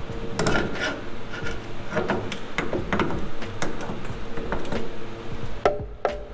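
Loose steel steering linkage clinking and knocking as a 1972 Datsun 510's center link is worked onto the idler arm, the loosely assembled, floppy parts rattling against each other in irregular clicks, with one sharper knock near the end.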